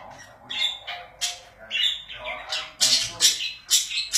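Pet budgerigars chattering, with many short, sharp squawks and chirps, several a second, mixed with lower warbling.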